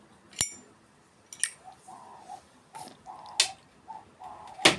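Sharp metallic clicks of a Zippo lighter's case being handled, five in all, the loudest near the end.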